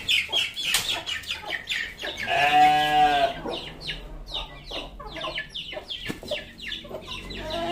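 Chickens clucking in short, repeated calls, with a single drawn-out call from a farm animal about two seconds in, rising and then falling in pitch over about a second.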